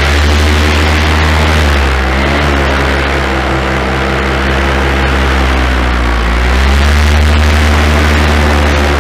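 Miniplane paramotor's Top 80 two-stroke engine and propeller running loud, throttled back about two seconds in and opened up again about seven seconds in.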